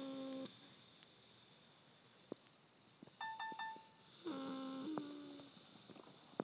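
Snoring in sleep, each snore a pitched drone with a nasal, whistling tone. One snore dies away just after the start, a short higher-pitched squeak comes about three seconds in, and another snore lasts about a second around the four-second mark.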